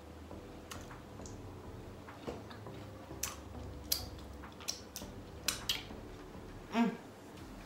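Close-up chewing of a sauce-dipped fried chicken wing: scattered crunches and wet squishy mouth sounds, with a short hummed "mm" near the end.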